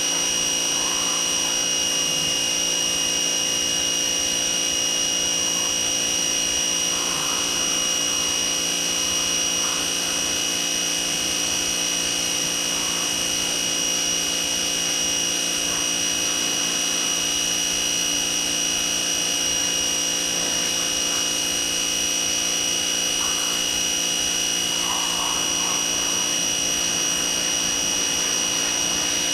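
Pressure washer running steadily with a constant high whine and hum, spraying without pause.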